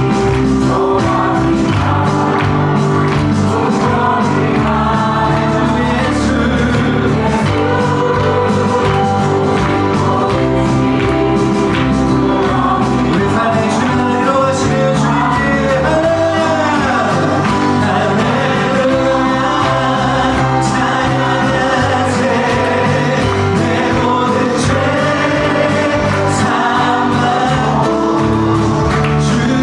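Congregational worship song: a group of voices singing together over a band.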